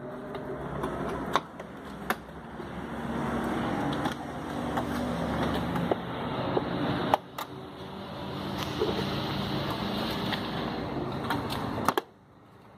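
Plastic door trim panel being pried and pulled off its retaining clips: scraping and rubbing with several sharp clicks and snaps as the clips give. A steady mechanical running noise lies underneath and cuts off suddenly near the end.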